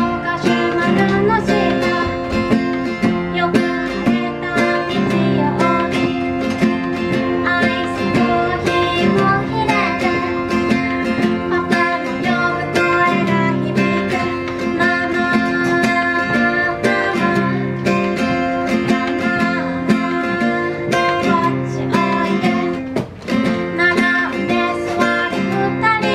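A woman singing solo to her own strummed acoustic guitar, with one brief break in the sound near the end.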